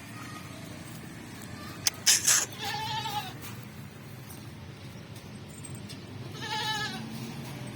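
A goat bleating twice, each a short wavering call, the second about four seconds after the first. A few sharp knocks come just before the first bleat, and a steady low hum runs underneath.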